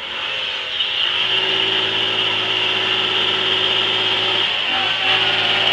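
BMW 7 Series (E38) sedan's engine held at high revs while its wheels spin on concrete, with a steady tyre squeal over the engine. The revs drop briefly about four and a half seconds in, then pick up again.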